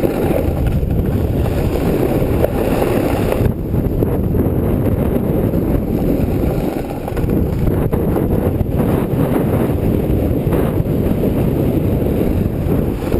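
Wind buffeting the microphone on a fast downhill ski run: a steady, loud rumbling rush with no clear tones.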